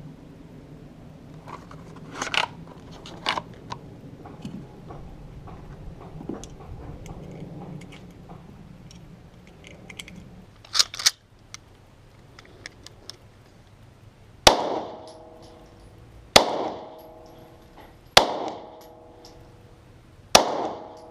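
Four gunshots from a Hi-Point 9mm, about two seconds apart in the second half, each followed by a ringing, decaying tail. Before them come lighter clicks and knocks from handling the gun, including two sharp clicks in quick succession.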